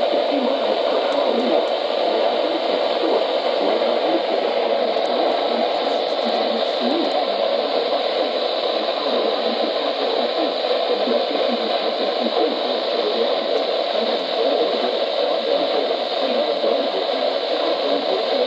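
Steady hiss of radio static from a weather radio receiver, with no voice coming through clearly.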